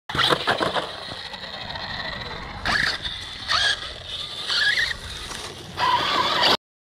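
Arrma Outcast 6S RC truck running, its brushless motor and drivetrain giving a steady high whine with about four louder bursts of throttle. There is a crunchy note from the centre differential, which the owner thinks needs replacing. The sound cuts off suddenly near the end.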